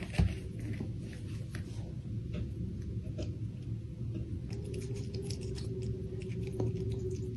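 Red squirrel biting and chewing a cherry tomato: a run of small, quick, wet clicks and snips, busiest in the second half, over a low steady hum.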